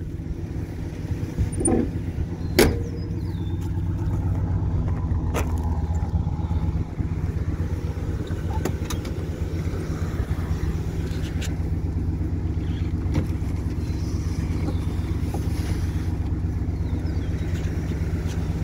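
1968 Ford Galaxie's 390 four-barrel V8 idling steadily. Two sharp clicks come in the first few seconds.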